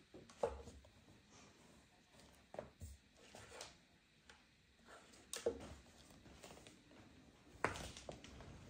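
Handling of a plastic pan-tilt smart camera: light clicks and knocks as it is turned in the hand, its power cable plugged in and the camera set down on a wooden table. The sharpest taps come about five and a half and seven and a half seconds in.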